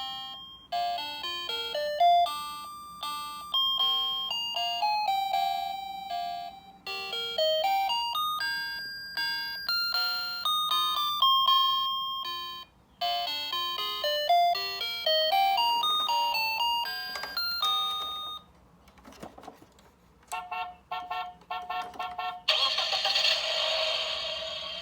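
A garbage truck's loudspeaker playing its electronic chime melody, a tune of bell-like notes that signals the truck's arrival for rubbish collection. The tune stops about three-quarters of the way through, then rapid repeated short beeping tones follow. A louder, denser tone sounds near the end.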